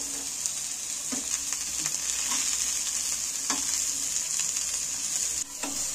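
Oil sizzling steadily in a steel frying pan with whole tomatoes, garlic cloves and dried red chillies frying in it, and a metal spatula knocking against the pan three times.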